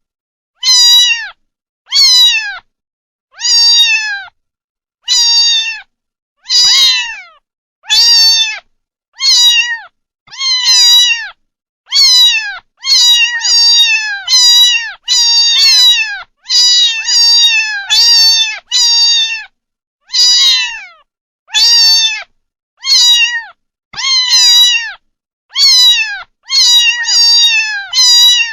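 Kitten meowing over and over in short, high-pitched calls, about one a second, each call sliding down a little at its end.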